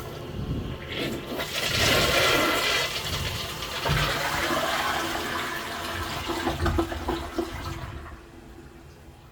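Kyerim Ceramics C-557 toilet flushing. The water starts suddenly and rushes loudest in the first few seconds, then gurgles and dies away about eight seconds in.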